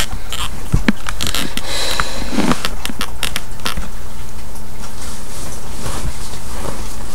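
Scattered rustles and clicks of clothes and a diaper being handled as a reborn doll is changed, thickest in the first few seconds while the camera is knocked about. A steady hum and hiss runs underneath.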